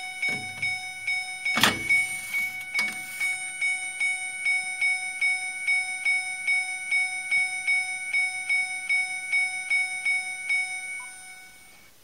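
Smartphone ringtone ringing for an incoming call, a repeating pulsed melody of about three notes a second that fades out about eleven seconds in. Two sharp clicks about two and three seconds in.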